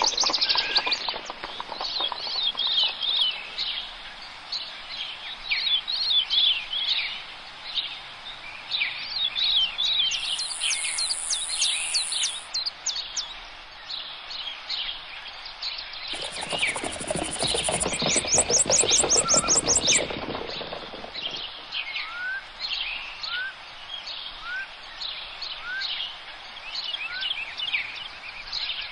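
Many songbirds singing and chirping outdoors, with short calls overlapping throughout. About sixteen seconds in, a louder, deeper noise joins for about five seconds. Later, a bird gives short rising whistles about once a second.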